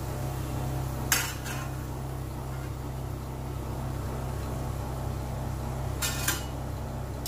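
Perforated steel skimmer clinking against a steel kadai as a puri is turned in the oil: two short bursts of clinks, about a second in and near the end, over a steady low hum.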